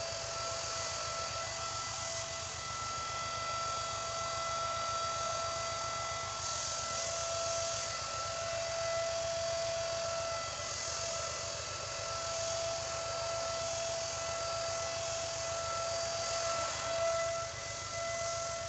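Air-fed paint spray gun hissing as it sprays finish, over a compressor running with a steady whine and a fast low pulsing. The hiss swells and fades as the trigger is worked.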